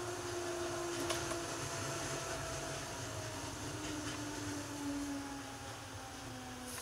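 205 series 1000 subseries electric train running on the rails, its motor whine slowly falling in pitch as it slows for the next station, over a steady rumble of wheels on track. A sharp click comes about a second in.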